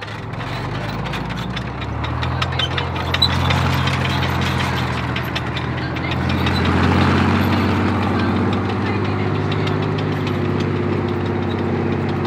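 T-34 tank's V12 diesel engine running as the tank drives off across dry ground, its note rising and growing louder about two seconds in and again around seven seconds, with a rattle of sharp clicks from the steel tracks over it.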